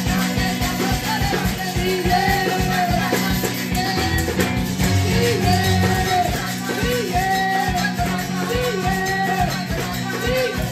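Lively Pentecostal worship chorus (coro de fuego): women singing a melody into microphones over upbeat accompaniment with a fast, steady beat, with maracas shaken along.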